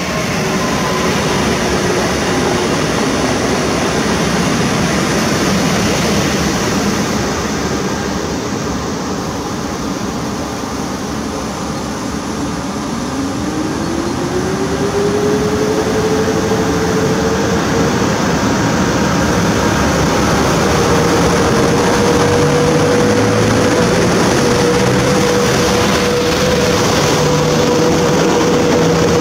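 PKP EP09 electric locomotive starting a passenger train away from the platform: a steady running hum, then from about halfway a whine that rises in pitch and levels off as the train gathers speed, with the carriages rolling past.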